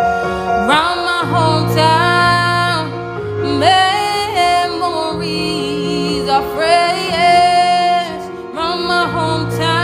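A woman singing, her voice sliding up and down through quick runs, over steady held low notes.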